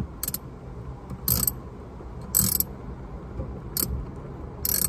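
Hand ratchet clicking in five short bursts, about one a second, as it turns out a headliner trim screw by hand.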